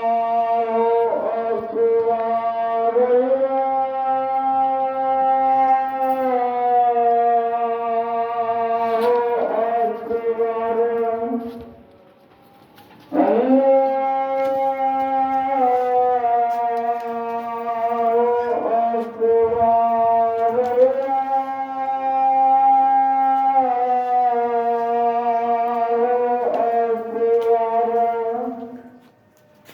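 Background music: a single melody line of long-held notes that step up and down in pitch. It comes in two long phrases, breaking off for about a second around 12 s in and fading out near the end.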